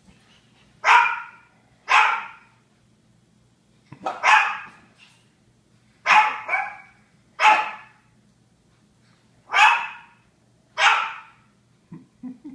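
Japanese Chins barking: about eight sharp single barks, spaced one to two seconds apart, sometimes two close together.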